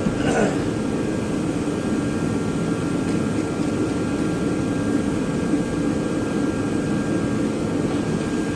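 A steady machine drone, like a fan running, low and unchanging, with a few faint steady whining tones above it.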